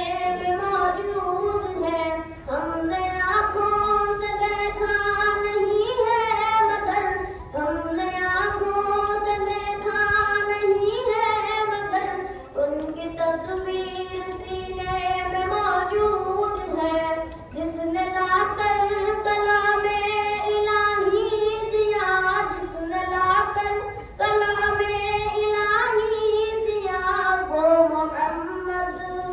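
A boy singing a naat unaccompanied, in long melodic phrases with held, gliding notes, breaking for breath every few seconds.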